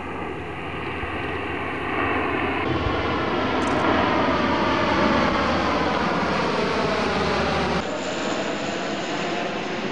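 C-130 Hercules turboprop engines droning as the aircraft passes overhead, the pitch of the propeller drone falling slowly. The sound changes abruptly twice, at about a quarter of the way in and again near the end.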